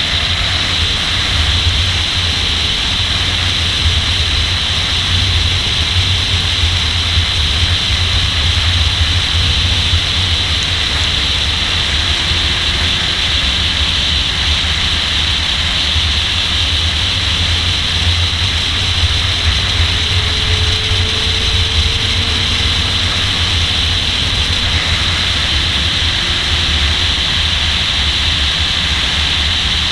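Car driven at track speed, heard from a camera on its hood: a steady rush of wind with a low rumble and buffeting. The engine lies faintly underneath, its note rising briefly a few times.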